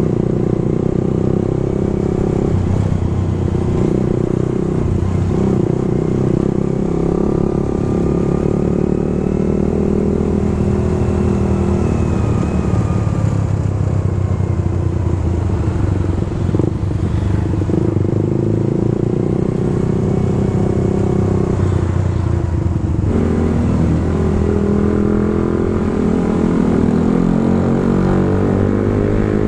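Suzuki GSX-R150's single-cylinder engine running under way, its pitch rising and falling with the throttle and shifting noticeably about three quarters of the way through.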